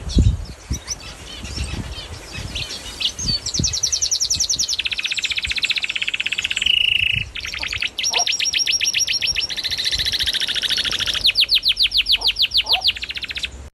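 Small pet birds chirping and trilling, in long runs of rapid repeated high notes that continue for several seconds at a time, with a short break about midway.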